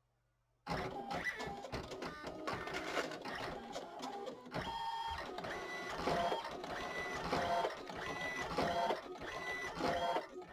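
ALPS MD-5500 thermal-transfer printer starting a print job: its motors whir in short, repeating pitched runs with clicks and clacks. The sound starts abruptly under a second in.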